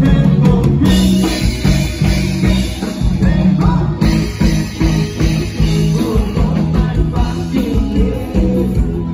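Live rock band with electric guitar, a pulsing bass line and vocals, recorded through a phone's microphone at a concert.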